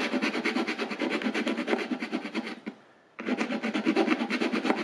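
Hand file rasping back and forth in a slot cut in a hardened Plastex plastic repair, in rapid short strokes. It stops briefly a little under three seconds in, then starts again.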